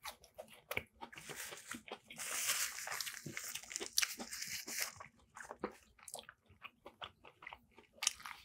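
Close-miked chewing and crunching of crispy battered fish, with many small crackles and a denser stretch of crunching from about two to five seconds in.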